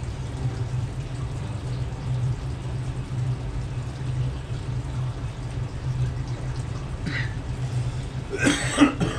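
A steady low hum throughout; near the end a person coughs harshly and clears their throat, reacting to the burn of extremely spicy popcorn.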